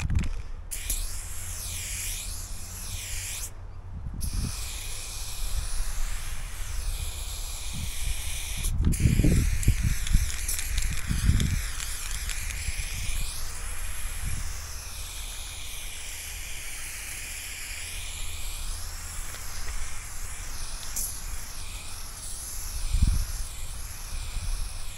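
Aerosol spray paint can hissing in long continuous sprays during the fill-in of a graffiti piece. The spray stops briefly about four seconds in and again near nine seconds. Low rumbles come and go underneath.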